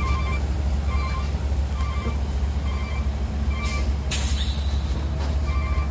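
Cat E120B hydraulic excavator's diesel engine running steadily while loading a dump truck, with a rush of soil pouring from the bucket into the steel truck bed about four seconds in. A short beeping alarm repeats about once a second.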